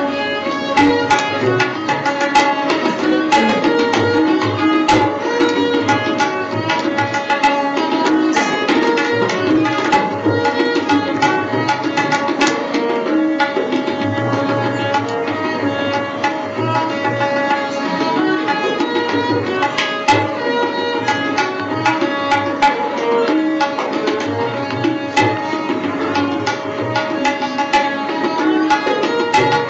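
Background instrumental music: quick percussion strokes over a steady held drone, running evenly throughout.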